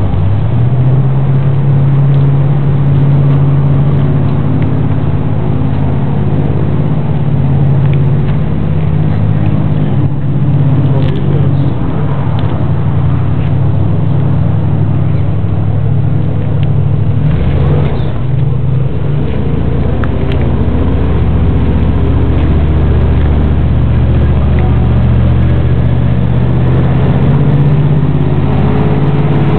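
Airboat engine running steadily, its note changing about two-thirds of the way in.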